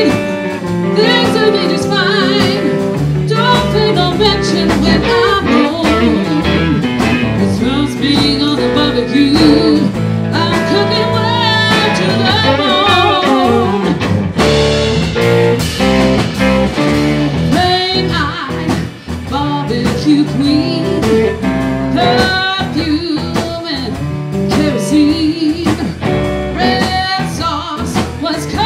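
Live rock band playing a song: a woman singing with a wavering vibrato over electric guitar, bass guitar and a drum kit.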